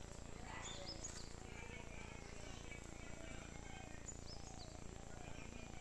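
Faint outdoor ambience: a steady low background hiss with a few short, high chirps about a second in and again near the end.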